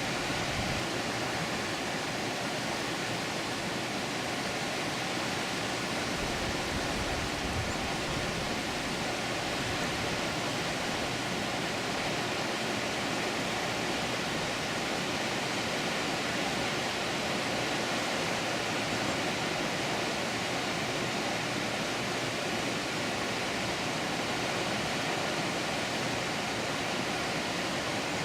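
Water pouring over a dam, a steady, even rush with no change in level.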